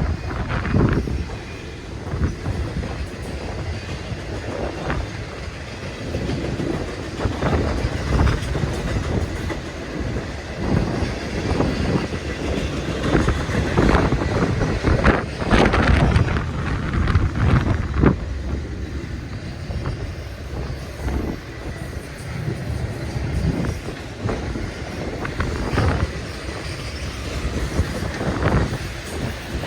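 Union Pacific intermodal freight cars rolling past, with the steady rumble of the train and irregular knocks and clacks from the wheels and cars.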